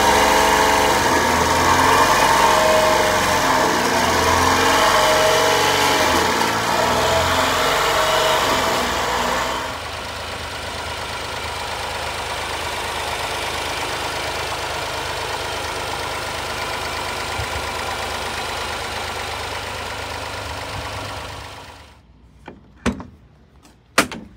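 Honda Acty kei truck's small three-cylinder engine running at idle, loud at first and then about a third of the way in noticeably quieter and steadier. Near the end the engine sound stops and a few sharp clicks follow.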